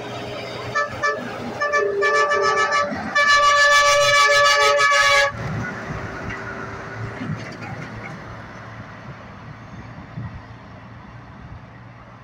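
Semi truck's air horn answering an arm-pump: two short toots, a longer blast, then a loud blast of about two seconds that cuts off suddenly. Afterwards the truck's diesel engine rumbles as it pulls away, fading.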